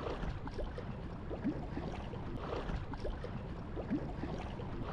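Water lapping and gurgling against a kayak's hull in small, irregular plops, over a low rumble of wind on the microphone.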